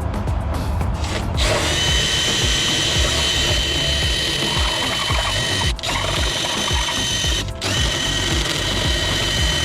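Power drill driving a hole saw through a door. Its motor whines steadily from about a second and a half in, cutting out briefly twice.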